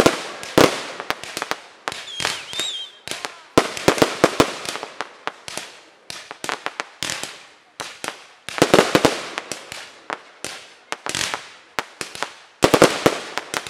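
Aerial fireworks display: clusters of rapid sharp bangs from bursting shells, each dying away quickly, with the loudest volleys about a second in, around four seconds, around nine seconds and near the end.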